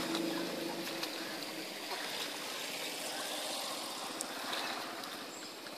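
Faint splashing and lapping of water from children swimming and paddling in harbour water by a stone quay wall, over a steady outdoor hiss.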